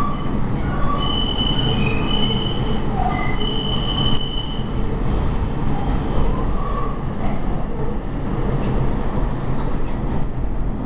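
R142 subway car running, heard from on board: a steady low rumble, with the steel wheels squealing against the rails in several high held tones for the first five seconds or so, then fading.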